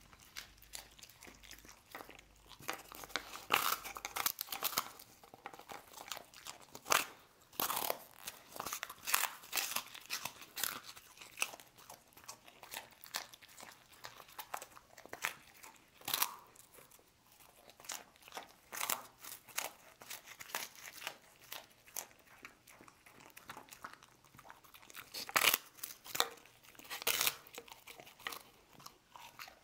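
A dog biting into and chewing puffed rice biscuits, crisp crunches coming in irregular bursts with short pauses between.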